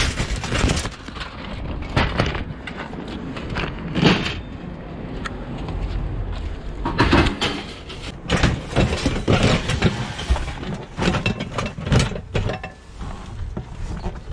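Aluminium scrap being handled and tossed onto a pile: irregular metallic clanks and rattles, coming thick and fast in the second half, over a steady low rumble.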